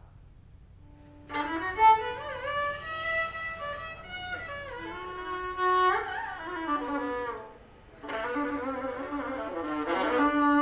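Solo violin playing a slow, wavering melody with vibrato and sliding notes in two phrases, broken by a short pause about three quarters of the way through, over a steady low hum.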